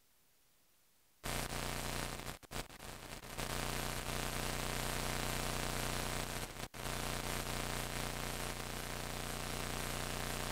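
Steady electrical hiss with a low, even hum underneath. It starts abruptly about a second in after dead silence, with two brief dropouts, and has no music or voices in it.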